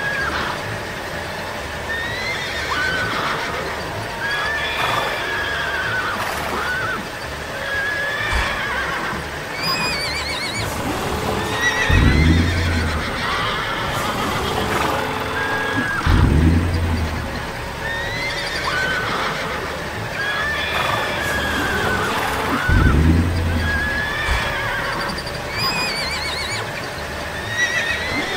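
Horses neighing and whinnying over and over, many short calls rising and falling in pitch. Three times a louder, deeper sound drops in pitch.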